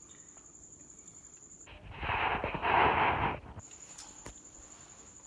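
Crickets chirping steadily in a high, pulsing trill. About two seconds in, a louder rushing hiss of noise lasts about two seconds and covers the chirping.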